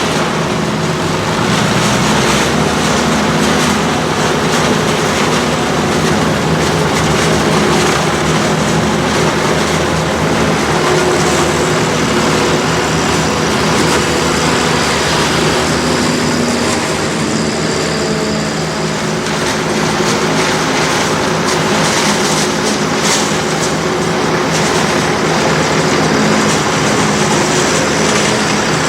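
Farm tractor engines and harvesting machinery running steadily and loudly, a constant hiss over the engine hum.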